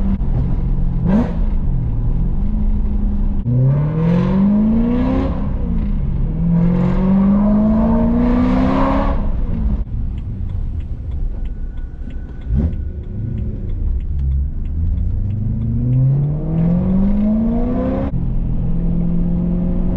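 BMW E92 M3's V8 engine heard from the driver's seat, pulling up through the gears several times, its pitch rising in each pull and dropping between shifts. Near the middle it eases off into a quieter stretch with faint ticking, then pulls again.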